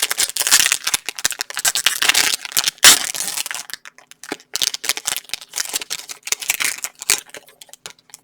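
Trading-card pack wrapper crinkling and tearing as it is opened by hand: a run of irregular crackles, with one sharp crack about three seconds in.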